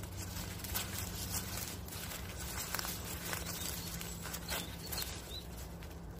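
Footsteps on a bank of dry grass and fallen leaves, irregular soft crunches, over a steady low hum.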